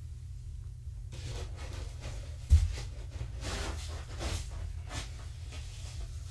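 Kittens scuffling and playing on a carpeted floor: scattered rustling and scratching, with one sharp thump about two and a half seconds in, over a steady low hum.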